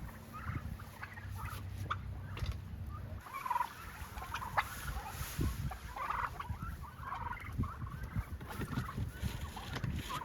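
A flock of Broad Breasted White turkeys calling in their coop: many short, scattered calls overlapping, over a low rumble, with a low steady hum for about the first three seconds.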